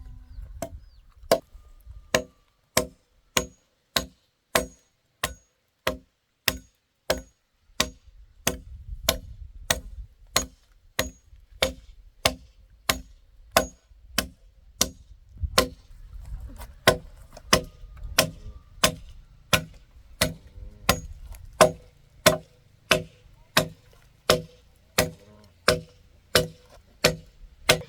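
A blade chopping into wood to cut a length off, a steady series of sharp knocks, about three every two seconds, each with a short ring.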